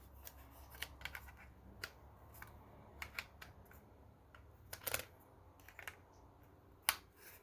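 Faint small clicks and taps of hard plastic parts being handled as a welding helmet's lens cartridge is fitted back into its holder, with sharper clicks about five seconds in and again near seven.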